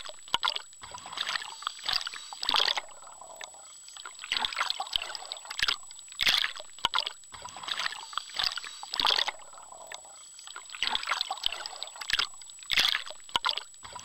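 Sea water splashing and sloshing in irregular bursts, with a thin steady high whine underneath.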